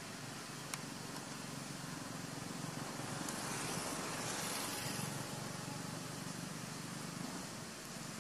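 Steady outdoor background hiss with a low rumble beneath it, swelling for a couple of seconds in the middle, and one faint click just under a second in.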